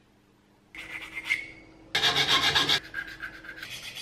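Metal hand file rasping along the edge of a cut-out aluminium dome panel in quick back-and-forth strokes. It starts under a second in, with a louder spell of fast strokes in the middle, then steadier, lighter rubbing.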